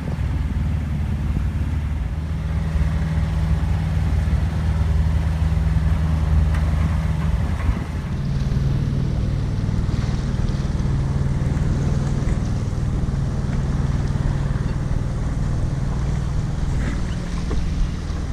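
A sailboat's auxiliary engine running steadily as the boat motors along, its pitch stepping slightly lower about eight seconds in, with wind noise on the microphone.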